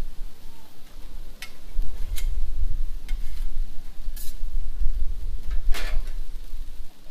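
Metal spatulas scraping and clacking on a Blackstone flat-top griddle as they toss a ground-beef, potato and pea hash, which sizzles on the hot steel. Several sharp scrapes stand out, the loudest about six seconds in.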